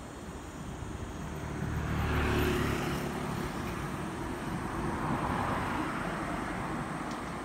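Road traffic: a vehicle passes close by, its rumble and tyre hiss swelling about two seconds in and then fading into steady traffic noise.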